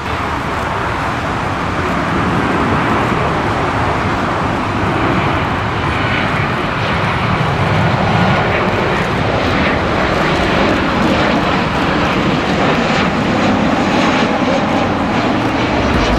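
Jet engines of a Boeing 737 airliner on final approach, a steady noise that slowly grows louder as the plane comes nearer.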